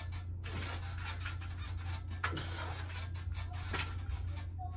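A man breathing hard while exercising on a dip-station power tower: three short, sharp exhales about a second and a half apart, with scratchy rubbing noise between them, over a steady low hum.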